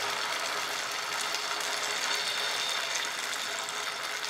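Rice-flour and vegetable chila batter sizzling in hot oil on a nonstick tava as it is spread with a spoon: a steady frying hiss with faint crackles.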